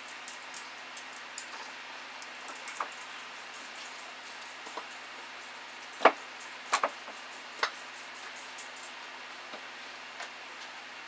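Sawn log sections knocking against each other and the bench shelf as they are shifted by hand, with a few scattered clicks and a handful of louder knocks about six to eight seconds in, over a faint steady hiss.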